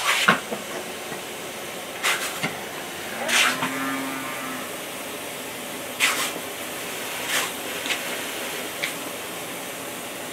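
Pop-up lawn sprinkler hissing steadily as it sprays, with about five short, louder bursts of spray as a dachshund snaps at the water jet.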